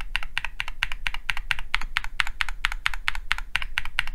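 Rapid typing on a mechanical keyboard fitted with linear switches with a polycarbonate top, nylon bottom and POM stem (Gateron Baby Raccoon, Gateron G Pro and JWick Yellow), about seven keystrokes a second at an even pace. Each press bottoms out with a crisp clack.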